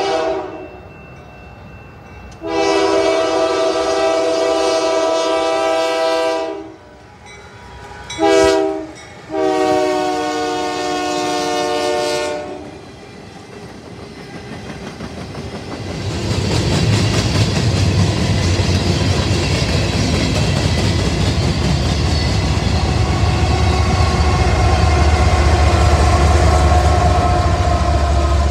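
Union Pacific GE diesel locomotives sounding a multi-note air horn for a grade crossing: the end of one blast, then a long, a short and a final long blast, the standard crossing signal. About halfway through, the lead locomotives pass close by with a loud, low engine rumble and the rattle of wheels on rail.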